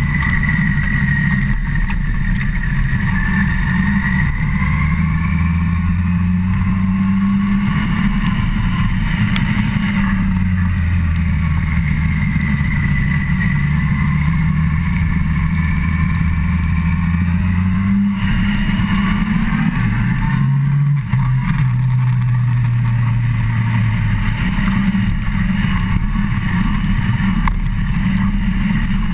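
Yamaha FZ1's inline-four engine running on the move, its pitch slowly rising and falling with the throttle and shifting with gear changes, under steady wind noise on the microphone.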